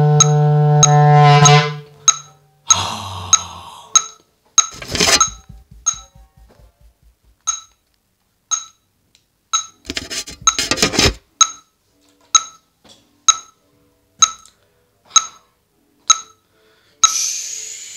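A bass clarinet holds a low note that stops about a second and a half in. After that a metronome clicks steadily about twice a second, broken by a few louder bursts of rattling noise around five and ten seconds in and a breathy hiss near the end.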